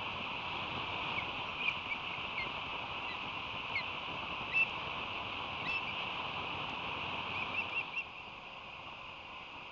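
Osprey fledglings giving short, high chirping calls, scattered singly and then in a quick run of three or four, over a steady background hiss.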